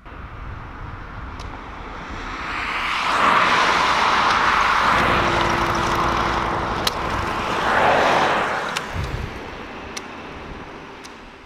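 Road traffic passing on asphalt: the noise of tyres and engines swells and fades twice, loudest about three and eight seconds in, with a steady engine drone in between. A few sharp clicks sound over it.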